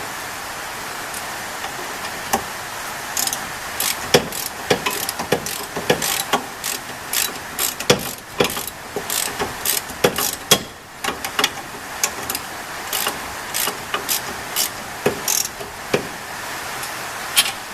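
Socket ratchet clicking in runs of sharp clicks, two or three a second, as suspension bolts are worked, starting about three seconds in, over a steady hiss of rain.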